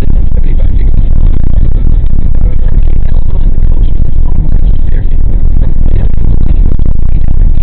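Steady, loud low rumble of a car driving, heard from a dash camera inside the cabin, with the car radio playing underneath.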